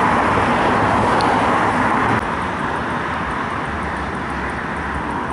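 Steady vehicle and traffic noise that drops a little in level about two seconds in.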